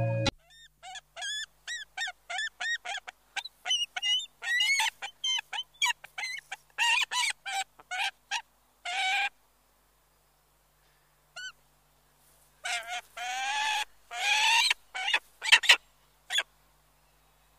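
Golden eagle calling: a long series of short, high yelping notes, about two to three a second. After a pause, a few longer, drawn-out calls and some short notes come near the end.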